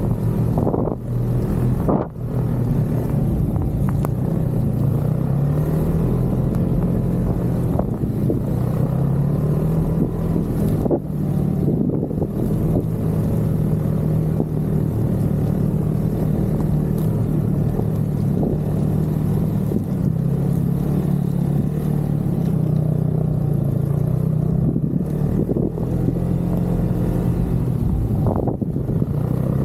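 Snowmobile engine running steadily under way, its pitch rising and falling slightly with the throttle, with a couple of brief dips in level.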